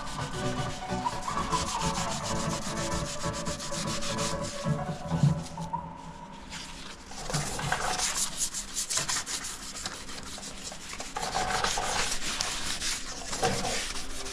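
Sanding on a car body panel: a run of rough, irregular rubbing strokes.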